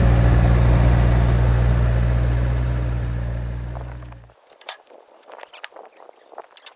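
A heavy engine running steadily at a constant pitch, fading and cutting off about four seconds in. After it come faint scattered clicks and rustling.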